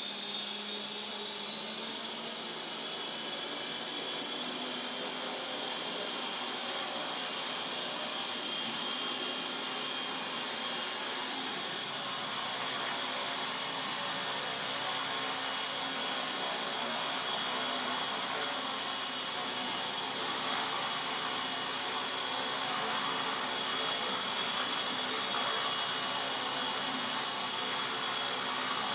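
Align T-Rex 450 SE electric RC helicopter hovering: a high-pitched whine from the brushless motor, gears and rotors over a rushing hiss, rising in pitch over the first few seconds as the head speed comes up, then holding steady.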